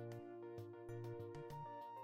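Background music: soft instrumental music with held notes over a steady beat.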